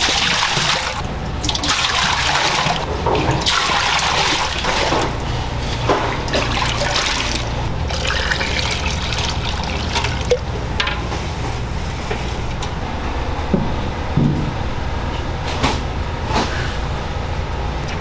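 Water running and splashing, as from a tap into a sink, rising and falling in strength, with a few sharp knocks and a steady low hum underneath.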